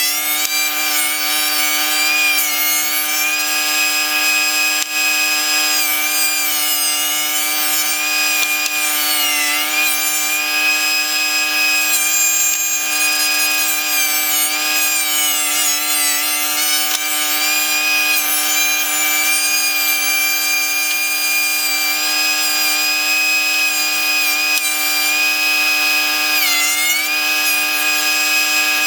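Dewalt 13-inch thickness planer running steadily while planing pine boards. Its high motor whine dips briefly in pitch several times as it works.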